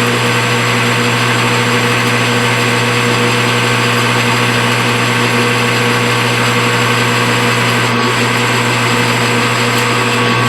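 Metal lathe running steadily, a constant mechanical hum with a few held tones, as it turns a piece of aluminum stock.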